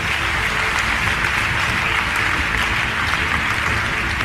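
Large seated audience applauding, a steady, continuous clapping throughout.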